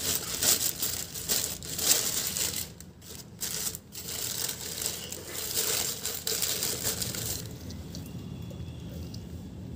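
Thin plastic wrapping bag crinkling and rustling as it is handled and pulled off a plastic toilet brush holder. The crinkling stops about three-quarters of the way through, leaving a steady low hum.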